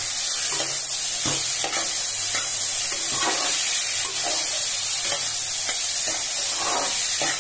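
Cubed pumpkin and Malabar spinach sizzling in oil in a metal kadhai while a spatula stirs them, with irregular scraping strokes against the pan over a steady frying hiss.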